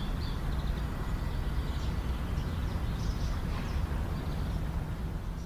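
Outdoor ambience: small birds chirping over a steady low rumble.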